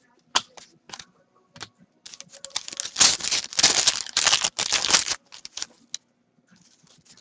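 A foil trading-card pack being torn open by hand. A few light clicks and taps of cards being handled come first, then about three seconds of crinkling and ripping of the wrapper, starting about two seconds in.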